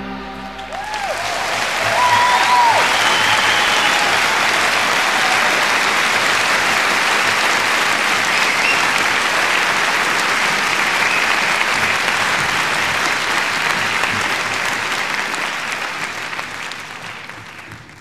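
Concert audience applauding after a song ends, with a few whistles in the first three seconds. The applause swells about two seconds in, holds steady, and fades away near the end.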